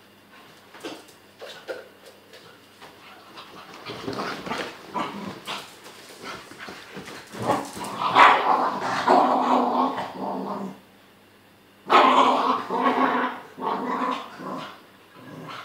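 A beagle and an American cocker spaniel play-fighting, growling at each other amid rustling and scuffling on bedding. The first few seconds are mostly soft scuffling; the growls build from about four seconds in and come in two loud stretches separated by a short lull.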